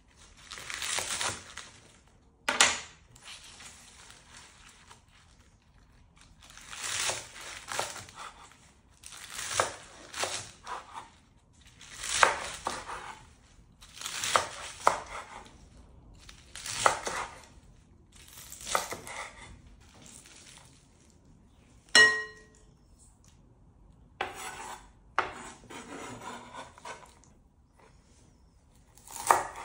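Kitchen utensils working in a dish: a series of scraping strokes, each about a second long and coming every second or two, with sharp clinks between them. One clink about two-thirds of the way through rings on briefly.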